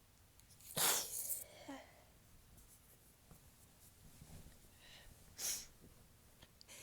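Two soft, tickly human sneezes: the louder one about a second in, another about five and a half seconds in.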